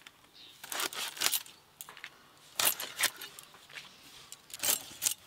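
Rohu fish being sliced into ring steaks on a boti's curved blade: a few short, sharp cutting strokes with light metallic clinks, about one every second or two.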